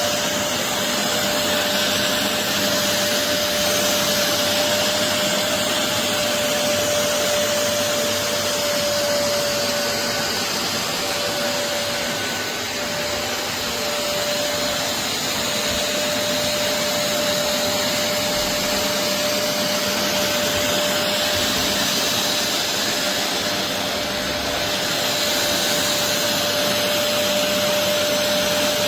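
BISSELL Revolution HydroSteam Pet carpet shampooer's suction motor running steadily: a loud, even rushing noise with a constant whine.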